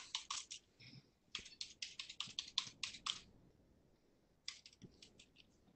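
Computer keyboard typing, faint, in short runs of keystrokes: a few at the start, about a dozen quick ones between one and three seconds in, and a short run near the end.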